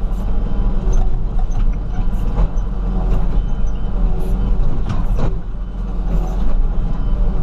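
Komatsu WB140 backhoe's diesel engine running steadily under load while the backhoe bucket prises up old asphalt, with a few short sharp knocks and cracks through it.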